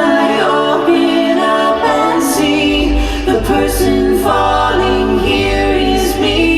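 A cappella vocal group singing close harmony in sustained, shifting chords, with a deep bass line coming in about three seconds in.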